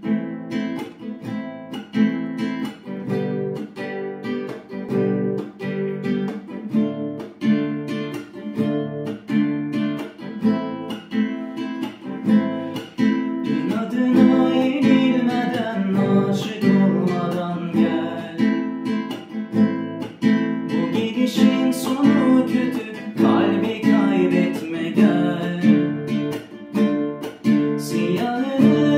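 Acoustic guitar strummed in a steady rhythm; a man's voice comes in singing over it about halfway through.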